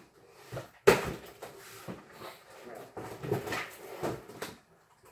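A cardboard box and its packing being handled and pulled open by hand: irregular knocks, scrapes and rustles, with one sharp knock about a second in.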